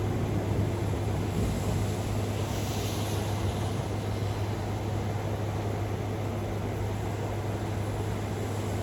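Steady hiss of a thunderstorm's rain and wind just after a thunderclap has died away, with a constant low hum underneath.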